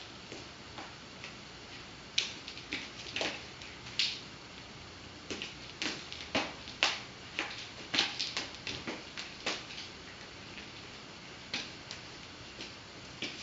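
Nunchaku being swung and twirled: an irregular run of short, sharp swishes and clicks as the sticks whip through the air and are handled, coming thick and fast in the middle and thinning out for a couple of seconds before picking up again near the end.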